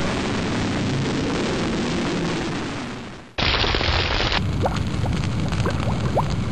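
Explosion and fire sound effects: a deep rumble fades away over the first three seconds, then a sudden loud blast cuts in. A continuing rumble follows, with crackles and short rising whistles.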